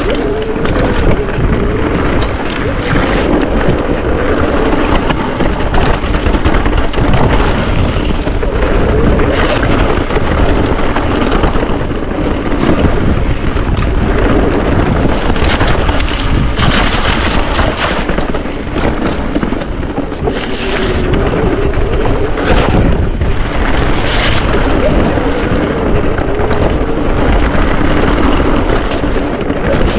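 Mountain bike riding over wet, puddled trail, heard on a bike-mounted or rider-worn camera: a loud, steady rumble of wind on the microphone and tyres on the ground, with frequent knocks and rattles from the bike over bumps and a wavering hum throughout.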